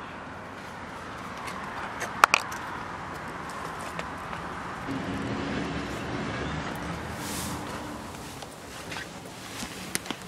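A few sharp clicks and knocks from moving about inside a van's rear cabin, the loudest pair about two seconds in and a couple more near the end, over a steady low background hum.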